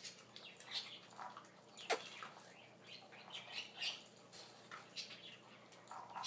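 Puppy playing with a toy: a string of short, irregular scuffing and mouthing noises, with one sharp click about two seconds in.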